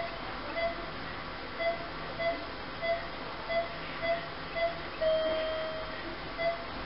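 Patient monitor on the anaesthetised surgical patient beeping with each heartbeat, a short beep a little under twice a second, with one longer tone about five seconds in.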